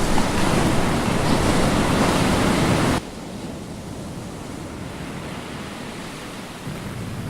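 Rushing sea-water and wind sound, loud and hissing for about three seconds, then cutting off abruptly to a quieter, deeper ocean-and-wind ambience.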